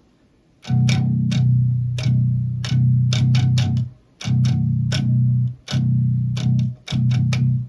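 Electric bass guitar playing a heavy metal riff on low notes with sharp, clicky attacks, in short phrases broken by brief pauses; it starts just under a second in.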